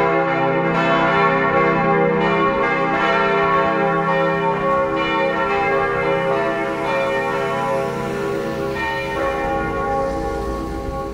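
Church tower bells ringing in a full peal: repeated strokes about every second, with the tones of several bells overlapping and ringing on. A low rumble comes in near the end.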